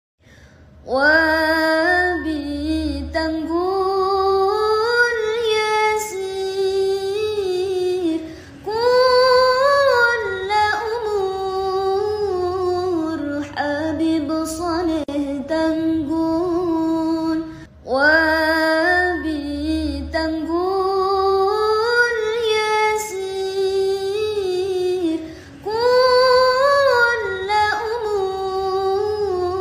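Background music: a woman singing a slow solo melody over a low hum of accompaniment, in long phrases. The same passage starts over about halfway through.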